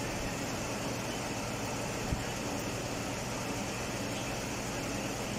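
Mazda CX-9 engine idling steadily with the air conditioning running while the system is slowly charged with refrigerant, a low even hum, with a single soft knock about two seconds in.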